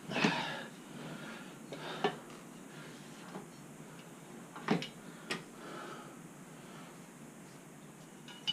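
A handful of separate light metallic clinks and knocks, a second or two apart, from hands and tools working a motorcycle's front axle loose from the wheel and fork.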